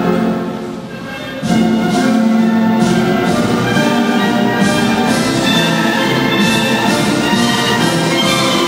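Orchestral music with many held notes, drawing back for about a second near the start and then coming in full again.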